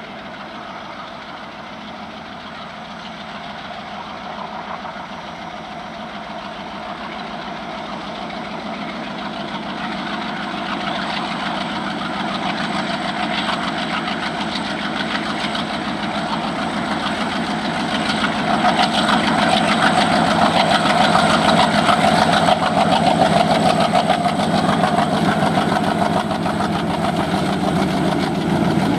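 Twin ALCo WDG3A diesel locomotives working under power, their 16-cylinder ALCO 251 engines chugging as the heavy freight train approaches. The sound grows steadily louder and is strongest from about two thirds of the way in.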